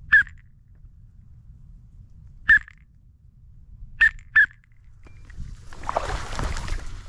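Four loud, short quacks blown on a mallard duck call: one, another about two seconds later, then a quick pair. Near the end, dry tule reeds rustle as the hunter moves through them.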